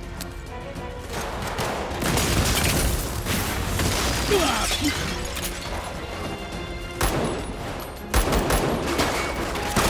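Action-scene sound effects over dramatic background music: an explosion about two seconds in, its blast noise lasting several seconds, then a few sharp gunshots or impacts near the end.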